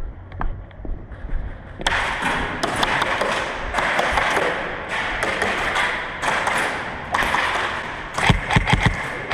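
A loud rushing, rustling noise for several seconds, then a quick run of sharp cracks with thumps near the end: airsoft gun shots.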